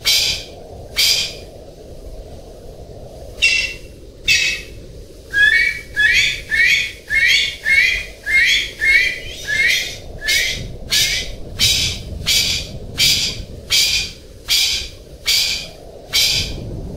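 Golden pheasant calling: short, harsh, high calls, one about a second in and a pair near four seconds, then a fast run of about two calls a second from about five seconds on.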